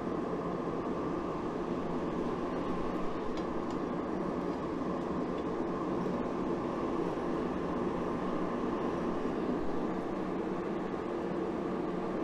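Gas forge burner running, a steady rushing hum, while a billet heats to welding temperature. A few faint clicks come about three seconds in.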